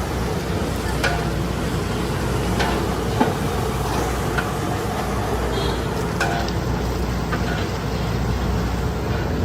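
Food frying in a large cooking pot: a steady sizzling hiss over a low rumble, with a metal ladle clinking against the pot about a dozen times while it is stirred.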